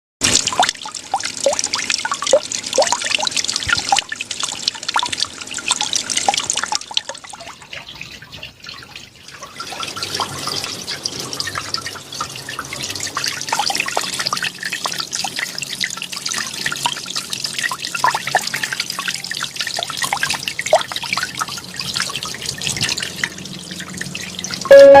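Water trickling and splashing steadily from a small garden waterfall into a pond, with many separate drips and splashes. It quietens briefly about seven seconds in, then carries on.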